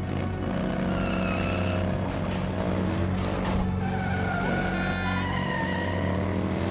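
Vehicle engines running steadily while a car's tyres squeal as it swerves and skids, a high whine that bends in pitch twice.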